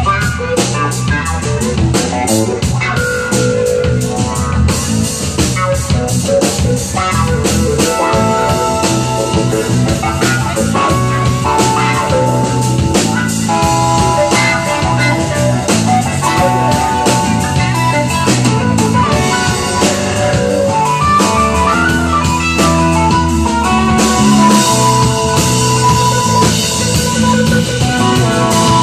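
Live instrumental blues-rock band playing: electric guitar, electric bass, a Ludwig drum kit and keyboard together, with a steady beat and held lead notes.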